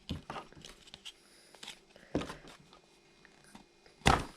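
Small plastic packaging and accessories being handled and opened by hand: scattered light rustles and clicks, with one louder knock about four seconds in.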